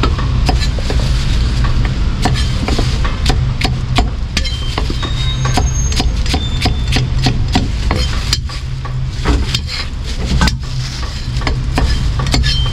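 Steel cleaver chopping cucumbers on a thick round wooden chopping block: a run of sharp knocks, a few a second and unevenly spaced, over a steady low hum.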